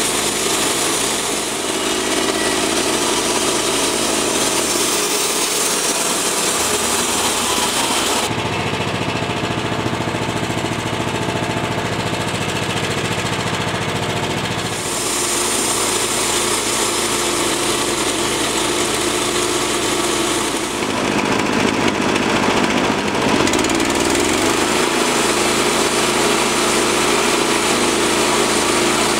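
Portable bandsaw mill running, its engine driving the blade through a black cherry log. The engine note shifts abruptly a few times, with a short glide in pitch about three-quarters of the way through.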